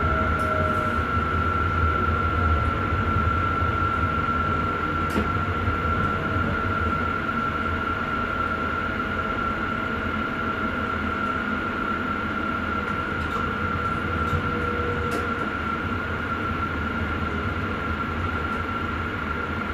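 Sprinter electric train running, heard from inside the driver's cab: a steady low running rumble with a constant high whine, and a few faint clicks.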